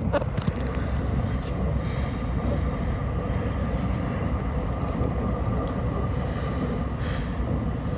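Puyuma express (TEMU2000 tilting electric multiple unit) running, heard from inside the passenger car: a steady low rumble with a faint steady whine over it. A few sharp knocks come in the first half second as the phone is handled.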